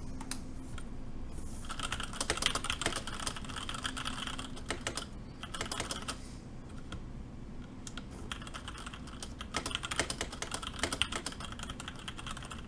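Typing on a James Donkey 619 mechanical keyboard with Gateron red linear switches: two spells of fast keystrokes, one starting about two seconds in and another about seven seconds in, with a short pause between.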